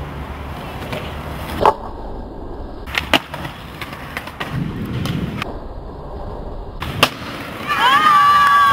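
Skateboard wheels rolling on concrete, broken by sharp clacks of the board hitting the ground, about two seconds in, around three seconds and about seven seconds in. Near the end a drawn-out shout rises over it.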